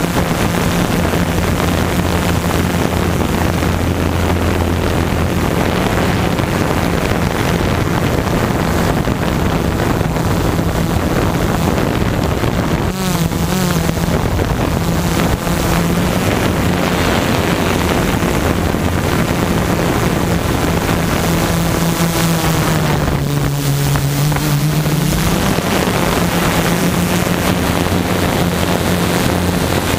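Tarot multicopter drone's electric motors and propellers running in flight, heard from the onboard camera as a steady hum with wind noise on the microphone. Past the middle the hum drops in pitch for a couple of seconds, then climbs back.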